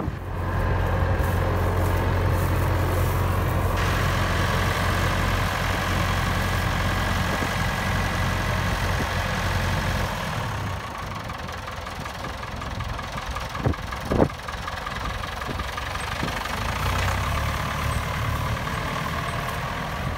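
Massey Ferguson 1085 tractor's four-cylinder diesel engine idling steadily, a little quieter after about ten seconds, with two short knocks about two-thirds of the way through.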